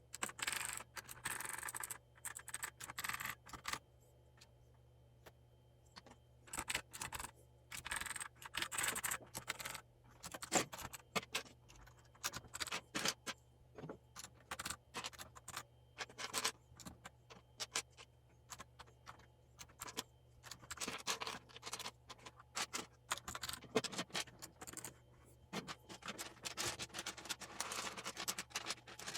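Plastic keycaps being handled and pressed back onto the switches of a mechanical keyboard: irregular bursts of small clicks and scratching, with short pauses between them.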